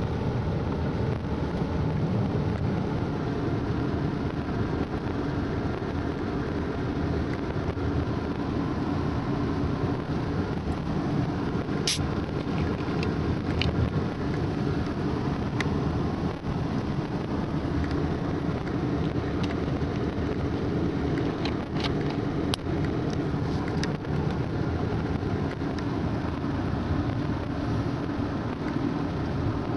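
Car running, heard from inside the cabin: a steady low hum and rumble, with a few light clicks partway through.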